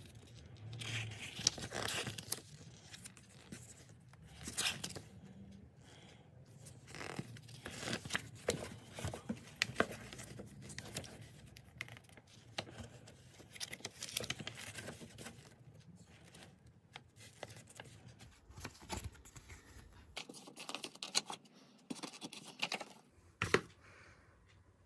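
Packaging being handled during an unboxing: irregular crinkling, tearing and scraping, with scattered clicks and one sharper click near the end.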